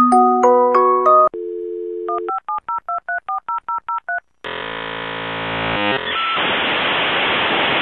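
A telephone sound sequence: a few chime notes, then a steady dial tone, then about ten quick keypad dialing (DTMF) beeps. After a short gap comes a harsh buzz that turns into a loud hiss of static over the line.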